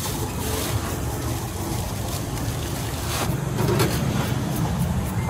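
Kitchen knife shaving the skin off a jicama in a few short scraping strokes, over a steady low rumble.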